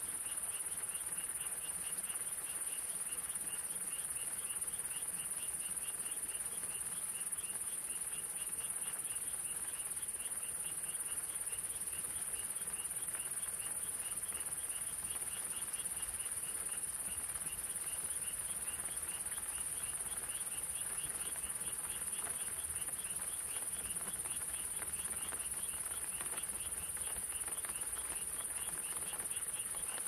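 A chorus of night creatures calling in a fast, even train of short chirps, several a second, over a steady high hiss.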